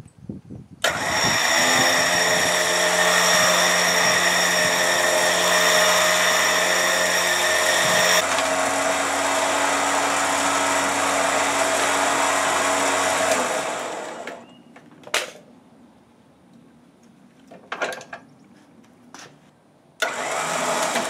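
Torxx electric winch running and spooling its cable in: a steady motor-and-gear whine that shifts in pitch about eight seconds in and runs down and stops about thirteen seconds in. A few sharp clicks follow, then a short burst of the winch running again near the end.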